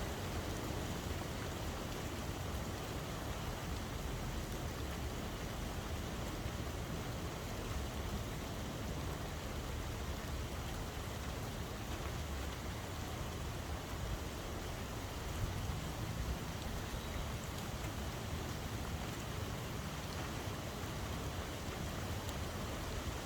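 Steady rain falling and pattering on surfaces, an even continuous hiss with a low rumble underneath.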